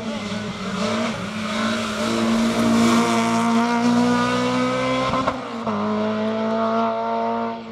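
Rally hatchback's engine revving hard at full throttle as the car accelerates past, with one upshift about five seconds in, the pitch dropping and then holding. The sound fades near the end as the car pulls away.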